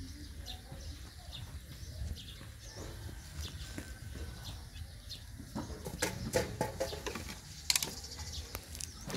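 A puppy eating rice out of a plastic tub: scattered small clicks and knocks of chewing and muzzle against the tub, busiest in the second half. Faint bird chirps sound in the background.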